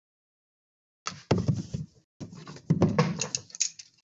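Trading cards and card packs being handled on a table: an irregular run of clicks, taps and rustles starting about a second in.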